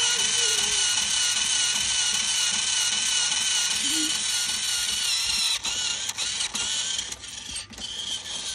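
Battery-powered toy train locomotive running on its plastic track, its motor and gears giving a steady whine that wavers slightly in pitch. About two thirds of the way through it gets quieter and a few sharp clicks and knocks come in.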